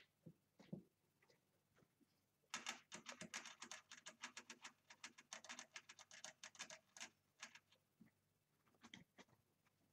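Fancy rats scampering and scrabbling in wood-shaving bedding and against the plastic cage wall: a faint, quick run of light patters, several a second, starting about two and a half seconds in and lasting about five seconds, with a few stray ones before and after.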